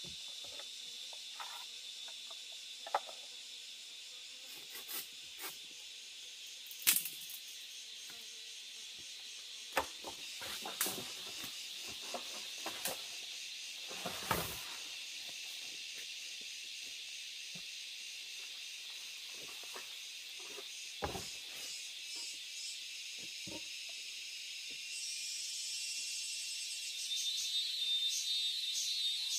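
Steady high-pitched insect chorus with scattered clicks and knocks over it. Near the end a louder, pulsing insect call comes in.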